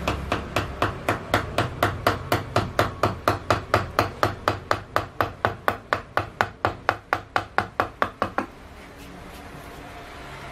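Wooden mallet tapping a carving chisel into cedar wood: a steady run of light strikes, about four a second, that stops about eight and a half seconds in. A low steady background rumble runs beneath and remains after the strikes stop.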